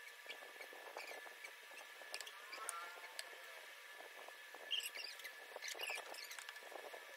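Soft, scattered eating sounds: fingers mixing rice and curry on plates, with small mouth clicks and smacks while chewing. A faint steady high whine runs underneath.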